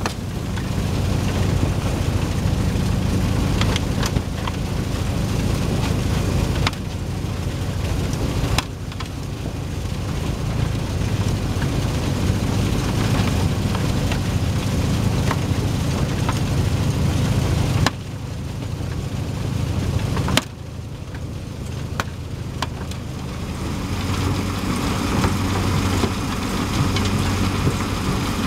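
Rockster R1100 mobile impact crusher running while it crushes and screens gravel: a steady engine hum under the rattle of stone on the conveyors, with a few sharp clicks. The sound jumps abruptly in level several times as the shots change.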